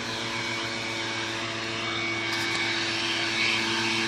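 An engine running steadily: a constant-pitched hum under a wide hiss.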